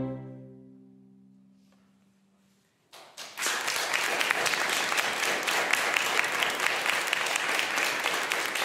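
The last chord of solo violin and orchestra rings away in the hall's reverberation. After a moment of quiet, an audience starts applauding about three seconds in and keeps clapping at an even level.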